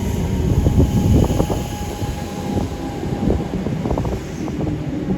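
Train running past, its wheels clattering irregularly over rail joints, with a steady whine through the first half and a low rumble underneath.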